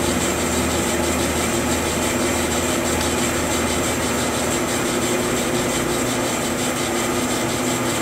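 Kalamazoo VS-36 vertical band saw running at a steady speed: a continuous, even machine hum with a faint high whine above it.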